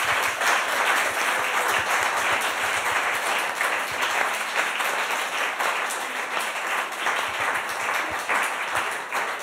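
Audience applauding, a steady dense clapping that eases off near the end.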